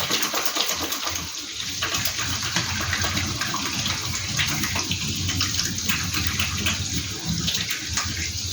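Kitchen sink tap running steadily while hands are rinsed under the stream.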